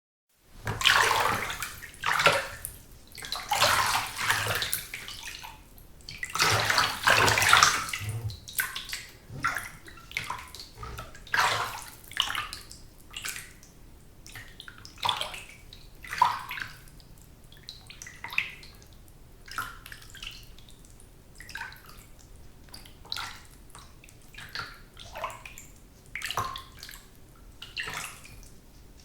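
Water splashing and sloshing in a bathtub as it is stirred by hand or body: a run of big, heavy splashes for the first several seconds, then smaller separate sloshes and drips that come more softly and sparsely.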